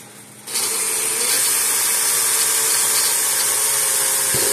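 Cordless drill with a small bit running and drilling a hole through a fence charger's circuit board. It starts about half a second in, runs steadily for about four seconds, and stops just before the end.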